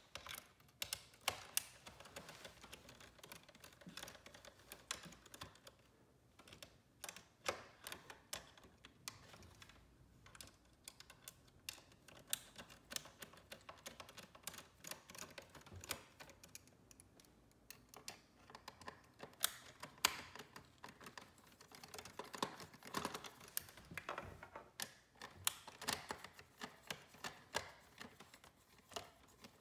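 Faint, irregular clicks and ticks of a hand screwdriver working out the screws that hold a paper shredder's circuit board, with small knocks as the board and its wires are handled.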